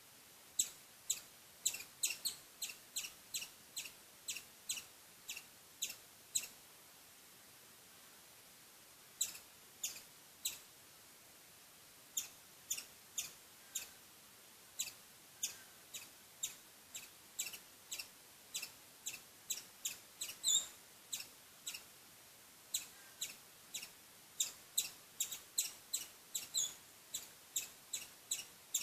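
Squirrel calling: a long series of short, sharp, high chirps, about two or three a second, in bouts broken by a pause of a few seconds.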